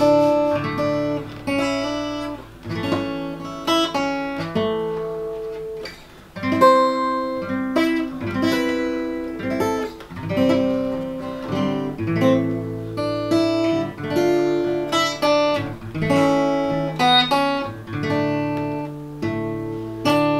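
Acoustic guitar being played: a tune of plucked notes and strummed chords, each struck and left to ring and fade.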